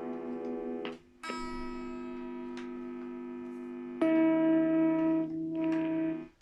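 Electric guitar chord ringing through an amplifier. The sound cuts out about a second in, returns, jumps louder around four seconds and drops out again near the end, with crackling clicks: the sign of a bad connection in the guitar's wiring.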